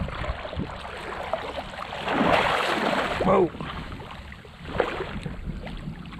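Outdoor wind and water noise around a small boat, with a louder rushing burst about two seconds in, followed by a man's startled "whoa."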